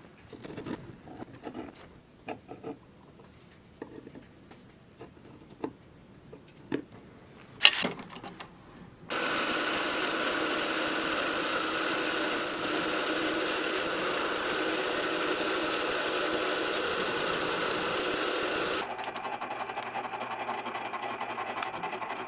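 Light clicks and knocks of a steel strap being handled, with one sharp click near eight seconds. About nine seconds in, a milling machine's end mill starts cutting into the steel strap, a loud steady machining sound; about ten seconds later it drops to a quieter steady running.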